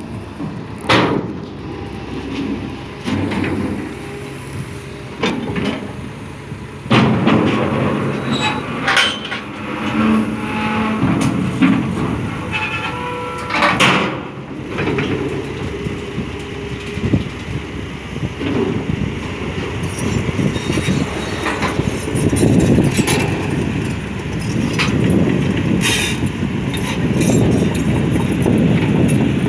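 Caterpillar 320D hydraulic excavator's diesel engine running under work, with repeated clanks and knocks as the machine moves on the steel trailer and its ramps.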